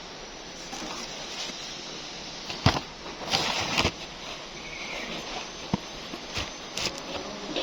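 Handling noises: a sharp knock, then a short rattling clatter about three seconds in, followed by a few scattered clicks and knocks, over a steady hiss.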